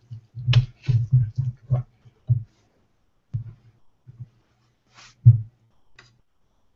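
Wooden spoon stirring thick, creamy risotto in a stainless steel pan: irregular scrapes and soft knocks for the first two and a half seconds, then a few scattered taps with one louder knock about five seconds in.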